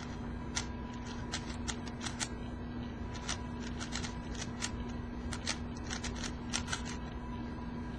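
A plastic 4x4 speed cube (YuXin Blue) being turned by hand, a run of irregular clicks and scrapes as its layers snap round. The cube is unlubricated and has a sandy, crunchy feel.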